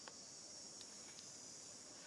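Faint, steady, high-pitched buzzing of insects in the trees, with a few faint ticks.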